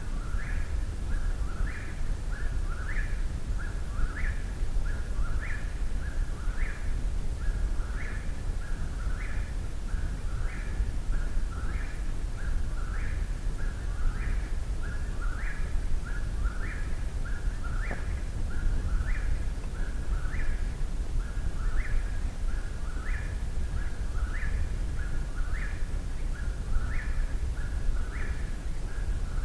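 Eastern whip-poor-will singing its three-note 'whip-poor-will' song close by, repeated steadily about once a second without a break.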